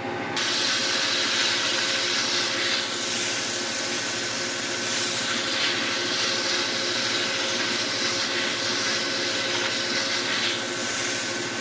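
Wood lathe running with a steady motor hum while something held by hand is rubbed against the spinning fir tool handle, giving a steady friction hiss. It starts suddenly about half a second in.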